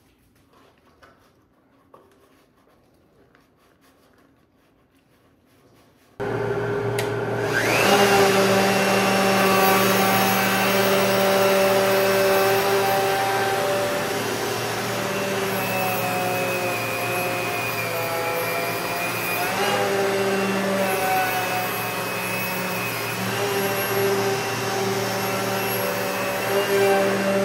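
Shop dust collector switching on suddenly about six seconds in, with a steady rush of air, then a wood router spinning up with a fast rising whine and running steadily. The router's pitch sags and recovers at times, as when the bit is cutting.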